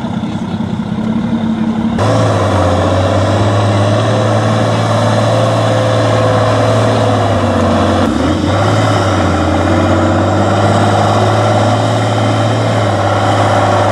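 Praga V3S 6x6 trial truck's diesel engine running steadily. It steps up in pitch and loudness about two seconds in and dips briefly about eight seconds in.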